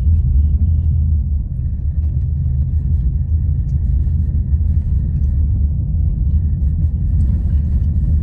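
Steady low rumble of a vehicle driving down a road, engine and road noise heard from inside the vehicle.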